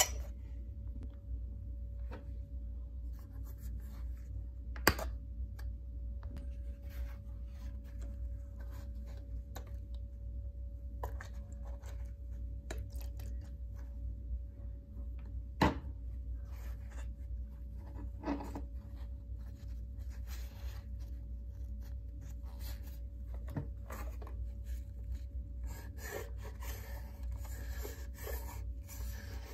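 Paper towel rubbing and scraping along the grooved top of a clock radio case, with a few sharp clicks and knocks of handling earlier on. A steady low hum runs underneath.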